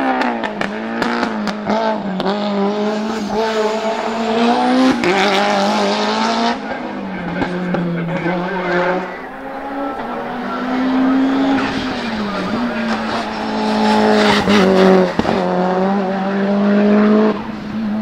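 Tuned Mitsubishi Lancer Evolution hillclimb cars at full throttle, their turbocharged 4G63 inline-four engines revving hard. The revs climb and drop back at each gear change, several times over, with a few sharp cracks.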